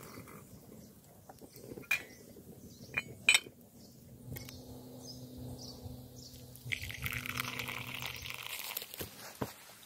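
Metal clinks from the Uberleben camp kettle's lid and handle, then water poured from the kettle into a mug for about two seconds, starting about seven seconds in.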